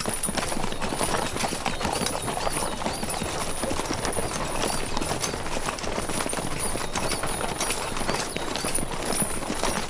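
Hoofbeats of horses travelling along a road: a continuous, uneven clip-clop of many overlapping hoof strikes.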